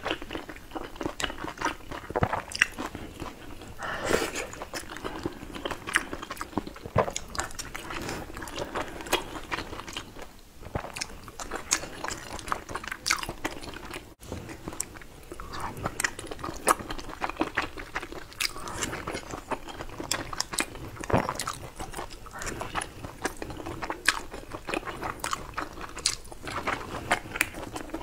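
Close-miked eating sounds: a person biting and chewing food, with frequent irregular wet clicks and crunches.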